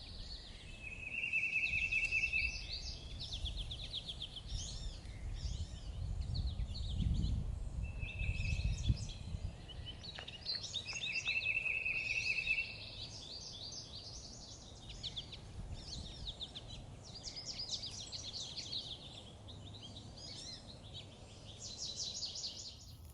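Songbirds chirping and twittering continuously, with several short buzzy trills held on one pitch. A low rumble rises and falls beneath them, strongest about six to nine seconds in.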